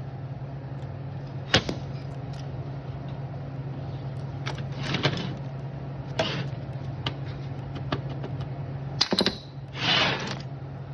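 TIG welding: a steady low electrical hum with scattered sharp clicks and a few short hisses.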